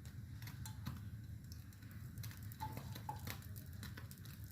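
Coconut oil heating in a pan, giving faint scattered crackles and ticks over a low steady hum.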